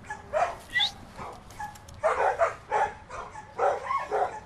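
Dog barking and yipping several times in short bursts, one of them sliding sharply up in pitch.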